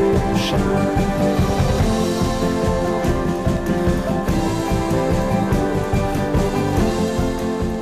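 Background music: a guitar-led song with a steady beat, beginning to fade out near the end.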